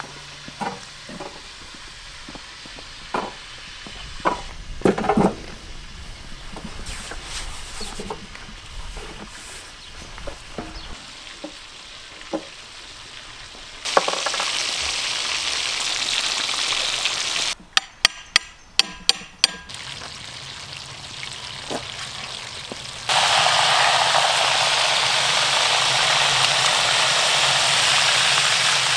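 Hot oil sizzling steadily around whole fish frying in a wide pan, in two long stretches, the second louder. Before it come a few scattered knocks and clatters, and between the two stretches a quick run of sharp clicks.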